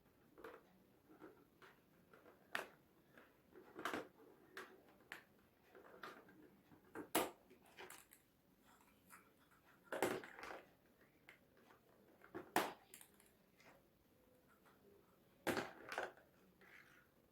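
Balls knocking against a board and bouncing, with handling noise: irregular single knocks and thuds every second or two, several of them louder.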